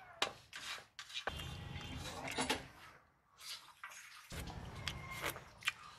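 Wet clicks and smacks of a man eating fish curry and chewing. A low rumble comes and goes twice.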